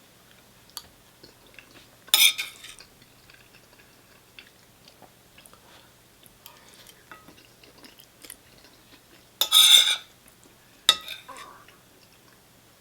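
Cutlery clinking and scraping against a dish while eating: a few short, separate scrapes and clicks, the loudest a little past halfway, with quiet stretches between them.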